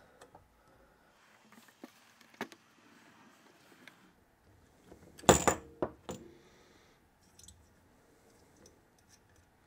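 Small metallic clicks and clinks of screws, a screwdriver and the choke housing of an Edelbrock four-barrel carburetor being handled on a wooden bench, with one sharp ringing metal clink about five seconds in and a few lighter ones after it.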